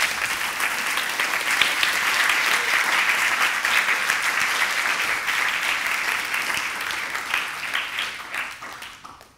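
Audience applauding: a dense patter of many hands clapping that thins out and stops near the end.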